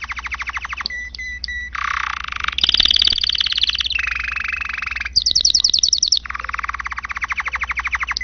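Domestic canary singing a continuous song of rapid trills, switching every second or so between trills at different pitches, with a few short clear whistled notes about a second in.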